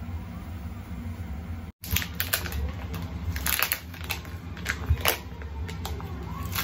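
Clear plastic food wrapping crinkling and crackling in short sharp bursts as it is peeled off by hand, starting about two seconds in, over a low steady hum.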